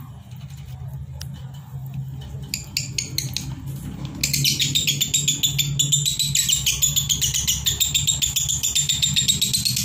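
Fischer's lovebirds chattering: faint chirps at first, then about four seconds in a loud, unbroken string of rapid shrill notes with no pause, the continuous 'konslet' song. A steady low hum runs underneath.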